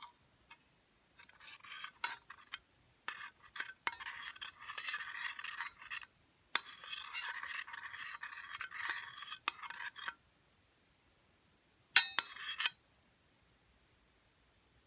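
A utensil scraping and stirring in a dish, in two long scratchy stretches with small clicks, then a sharp ringing clink about twelve seconds in.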